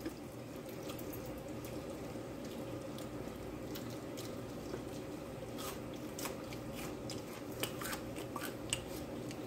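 A person chewing a homemade french fry: a few short, soft crunches and clicks, mostly in the second half, over a steady low hum.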